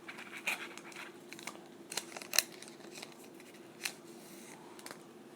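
Hockey trading cards being slid and flipped through by hand: faint, irregular light clicks and rustles of card stock.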